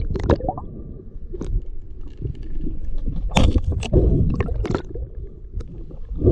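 Muffled underwater rumble and gurgling water heard through a submerged camera, with a cluster of sharp clicks about three to five seconds in.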